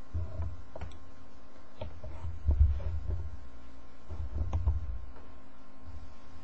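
A few soft clicks and low thumps, the loudest about two and a half seconds in, over a low rumble and a faint steady hum. This is handling noise from a computer mouse and desk close to the microphone.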